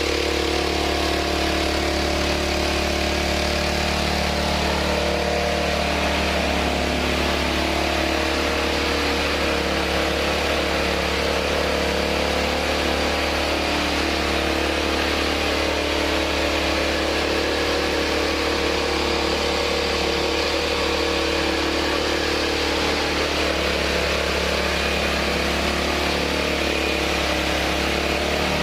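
Mahkota KD820 PRO mini rice mill (huller and polisher) running steadily: a constant mechanical hum with a whirring noise over it, with no change in speed.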